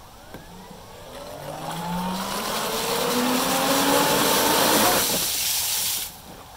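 Homemade ammo-box jet drive with a Scorpion 4525-520 brushless motor on 12S spinning up under water: a whine rising in pitch over a loud rush of water blasting from the nozzle. Motor and spray cut out suddenly about five seconds in, which the owner puts down to a radio signal loss.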